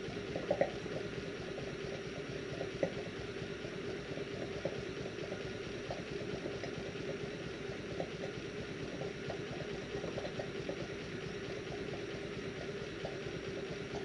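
Stuart Sirius twin-cylinder model steam engine running steadily on steam from a small copper boiler, a gurgling run with many small irregular ticks over the steady hiss of the gas burner. The gurgle is because it is running on wet steam, not superheated steam.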